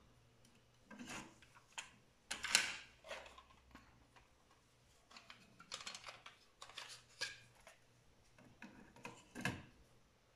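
Plastic clicks and rattles of a cassette being handled in the open cassette door of a Pioneer CT-S620 deck, a scattered run of small knocks with the loudest about two and a half seconds in.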